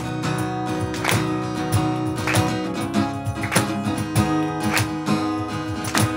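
Acoustic guitar strummed in a steady rhythm with a cajón keeping the beat under it, instrumental with no singing.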